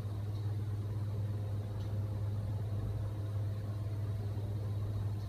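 Rooftop HVAC equipment running, a steady low hum with faint overtones above it.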